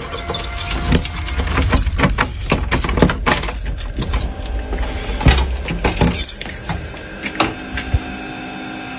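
Keys jangling and door hardware clicking and rattling, over low rumbling handling noise from a hand-held phone. The clicks come thickly for about four seconds, then thin out.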